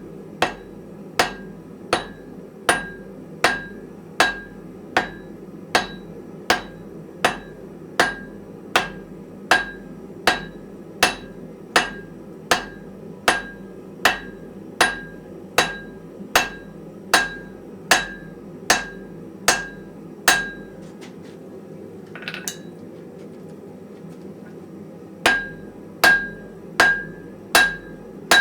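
Blacksmith's hammer striking hot wrought iron on an anvil in a steady rhythm, about one and a half ringing blows a second. The blows stop for about five seconds near the end, then start again.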